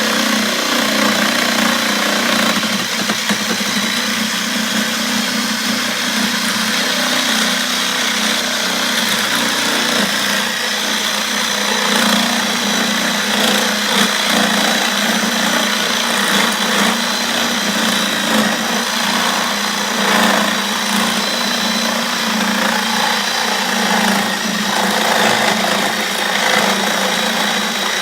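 Power tool running steadily as it cuts the end off the plastic housing of a refrigerator water filter, with a constant hum and a faint high whine.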